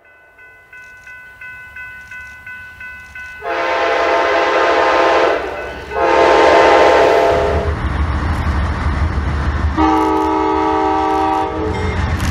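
A bell rings about three strokes a second, growing louder. A diesel locomotive's multi-chime air horn then sounds three long blasts, the last a lower chord, over a building low rumble of the passing train.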